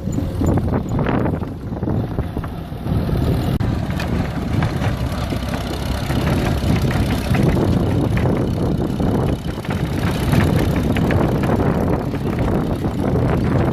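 Farm tractor running under load while baling hay, with steady engine noise and irregular clatter and knocks from the machinery.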